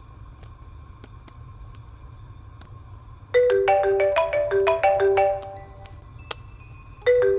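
Mobile phone ringing with a marimba-style ringtone: a quick run of bright mallet-like notes begins about three seconds in, and the same phrase starts again near the end.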